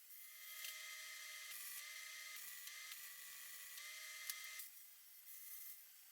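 Electric drill whining as it bores into steel angle iron, its pitch sagging briefly a few times as the bit bites. It stops about four and a half seconds in.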